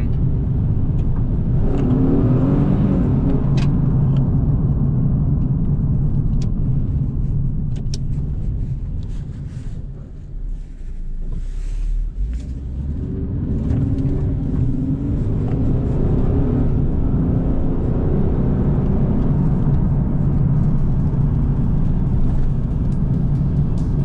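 Nissan 370Z's 3.7-litre V6 engine and road noise heard from inside the cabin while driving, easing off around the middle and then building again.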